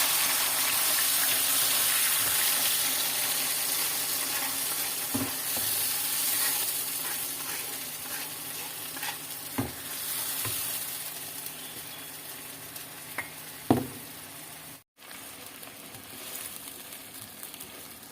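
Chili sambal paste sizzling as it is sautéed in hot oil in a pan, stirred with a spatula that knocks against the pan a few times. The sizzle is loudest at first and slowly dies down.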